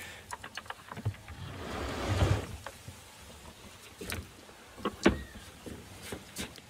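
A metal hasp on a wooden box clicks open, then the wooden lid is lifted with a rising scrape about two seconds in. A few sharp wooden knocks follow as the lid is handled, the loudest about five seconds in.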